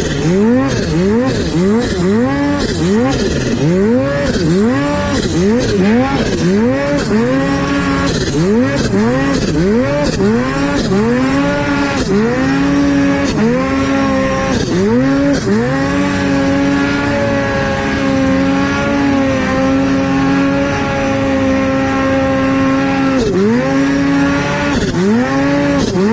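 Snowmobile engine revved in repeated throttle blips, each a quick rise and fall in pitch about once a second, while the sled works through deep powder snow. About two-thirds of the way through it holds a steady pitch for several seconds, then the blips start again near the end.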